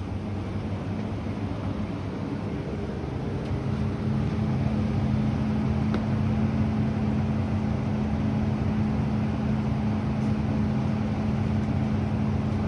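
A steady low mechanical hum, as of a motor or fan, with a few constant tones in it; it grows louder about four seconds in and then holds steady.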